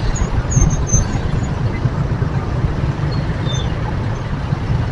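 Steady low rumble of a traffic jam: motorcycle and car engines idling and creeping forward close by.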